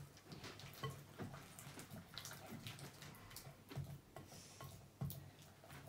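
Slime being stirred as the activator takes hold: quiet, irregular wet squelches and sticky clicks.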